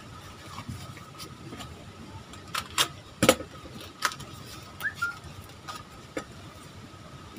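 Cardboard packaging handled as a TV flyback transformer is slid out of its cardboard sleeve: a few sharp crinkles and taps clustered around the middle, over a faint steady high tone.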